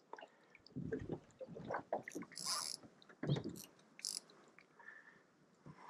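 Scattered knocks and clicks of gear and movement in a small aluminium fishing boat, with a short hiss about two and a half seconds in and another near four seconds.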